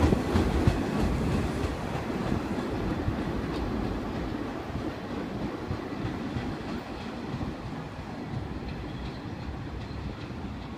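Staten Island Railway R44 electric train pulling away, its wheels clattering over the rail joints, the sound fading steadily as it recedes.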